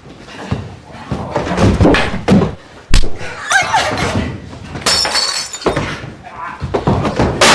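Fight sound effects: a rapid, irregular series of punch and body-hit thuds mixed with crashing, breaking sounds. The sharpest, loudest hit comes about three seconds in.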